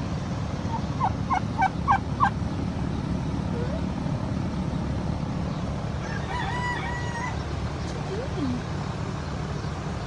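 Turkey hen calling: a quick run of about five short high yelping notes about a second in, then one longer held call about six seconds in.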